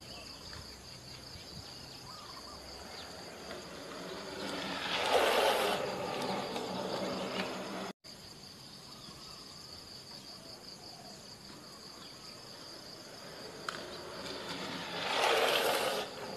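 Steady high-pitched chirring of insects, with twice a rising then fading rush of inline skate wheels on asphalt as a downhill skater comes by and slides to a stop.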